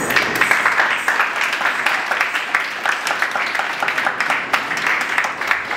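An audience applauding: many people clapping at once.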